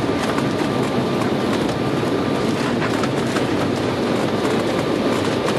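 Airliner cabin noise during landing: a steady, loud rumble of engines and rushing air, with scattered light rattles.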